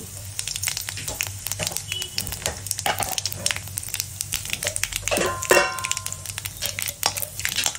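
Tempering spices (dried red chilli, urad dal, cumin and mustard seeds) sizzling in hot oil in a kadai, with many small crackles and pops. A brief falling tone sounds about five seconds in.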